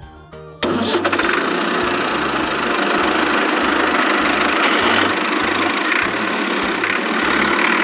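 Engine running, starting abruptly about half a second in and stopping abruptly near the end, over background music with a steady low beat.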